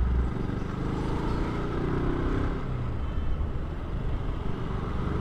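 KTM RC 200 motorcycle's single-cylinder engine running steadily on the move, with road and traffic noise, the engine note swelling briefly about two seconds in.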